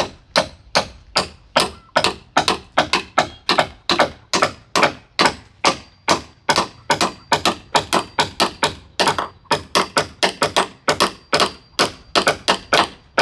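Rapid, evenly paced sharp strikes, about three to four blows a second, each a short knock with a brief ring.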